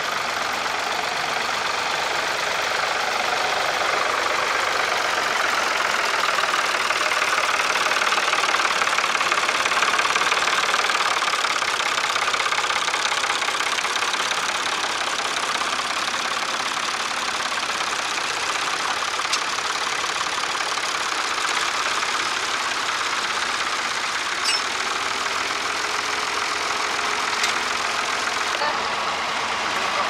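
Vintage farm tractor engine running steadily while ploughing.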